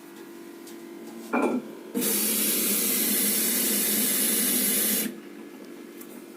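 Washing machine's water inlet valve opening for about three seconds, water hissing into the drum through the detergent drawer, starting and cutting off abruptly, over the steady hum of the running machine.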